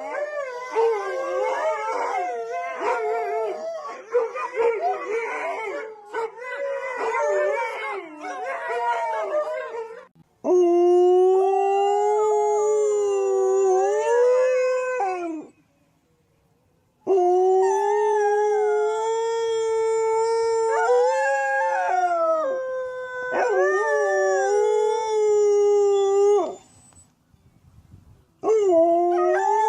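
Dogs howling: for about ten seconds several howl together in overlapping, wavering voices, then come long drawn-out howls of about five seconds each, a second voice joining at times, broken by short pauses.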